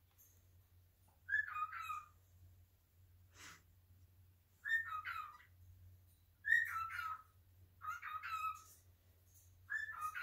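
A pet animal's repeated short high calls, five in all, each sliding down in pitch and spaced a second or more apart, with a soft click about a third of the way through.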